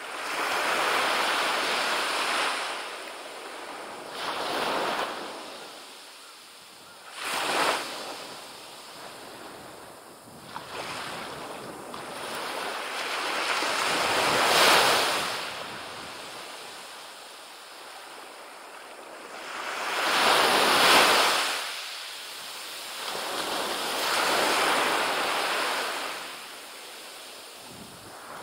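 Small ocean waves breaking and washing up a sand beach. The surf swells and falls back every few seconds, with the biggest washes about 15 and 21 seconds in.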